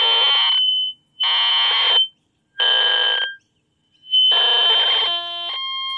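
Acoustic feedback through a pocket AM/FM radio's speaker, picked up by a small FM transmitter's microphone and rebroadcast: a shrill squeal near 3 kHz over rushing noise, coming in four bursts of about a second with short gaps. About five seconds in, a steady electronic chord takes over.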